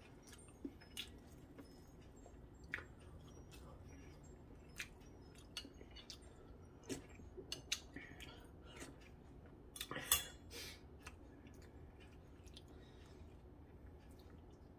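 Eating at the table: utensils clinking against a dish now and then, with faint chewing between; the loudest clatter comes about ten seconds in.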